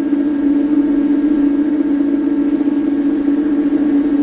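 Cycleboard Rover Gen 2 electric scooter's motor running its wheel with a steady hum. The brake has been re-fitted and no rubbing is heard: just the motor.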